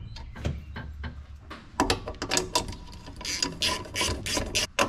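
Socket ratchet clicking in quick strokes, starting about two seconds in, as nuts are run down onto the studs that hold a coil pack. Before that there are a few light knocks of the plastic coil pack being set onto the studs.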